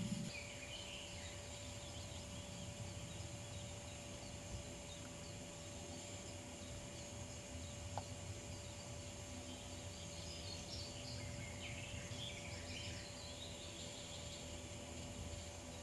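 Outdoor ambience: small birds singing in short, distant phrases near the start and again for a few seconds past the middle, over a steady background hiss and a faint steady hum. A single click about eight seconds in.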